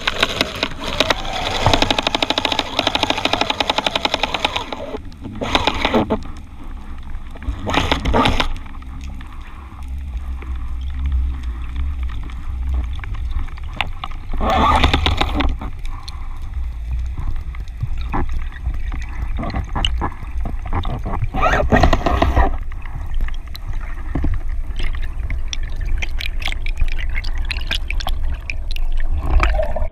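Underwater sound picked up through a camera's waterproof housing: a steady low rush of water with gurgling and crackling bubbles, broken by several short, loud swishes as the diver moves and hauls on a taut speargun line.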